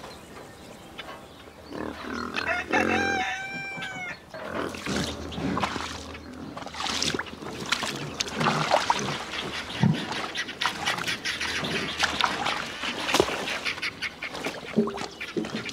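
Farmyard pigs grunting and snuffling around a mud wallow, with a busy run of short, wet clicking noises. About three seconds in there is one drawn-out call that wavers in pitch.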